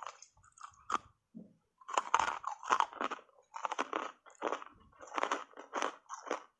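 Hard ice coated in matcha powder being bitten and chewed: a crisp crunch at the start and another about a second in, a short pause, then a steady run of loud crunching chews, several a second.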